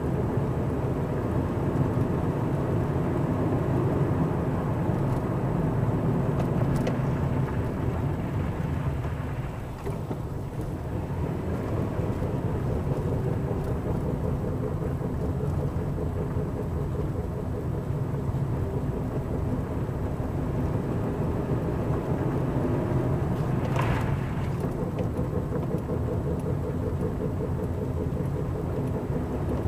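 Lada 21922 driving, heard with a steady low road and engine rumble that dips briefly about a third of the way in. About two-thirds through there is a single sharp knock: the knock the owner hears from the car after braking, its cause unknown.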